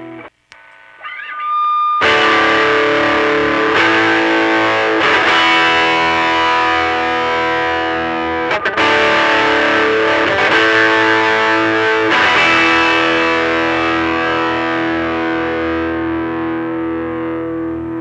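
Distorted electric guitar through an amp, a Lyon Strat-style guitar whose single-coil pickup has an Alnico bar magnet laid flat under it, playing chords that ring out. The playing comes in loud about two seconds in after a short gap with a faint rising tone, breaks off for a moment partway through, and fades slowly near the end.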